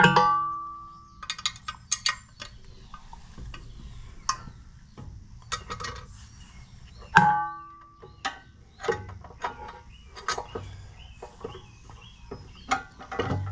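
Metal clanks, clinks and rattles of a tractor's battery hold-down bracket and bolts being worked loose by hand. Two loud metallic strikes, at the start and about seven seconds in, ring on for about a second, among lighter taps.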